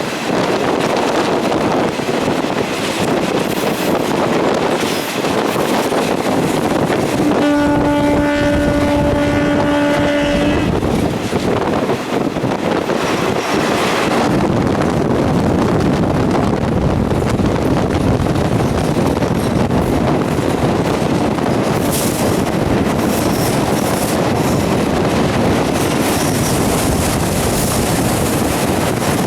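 Passenger train running with a steady, loud rumble of wheels and track. About seven seconds in, its horn sounds one long, steady note lasting about three seconds.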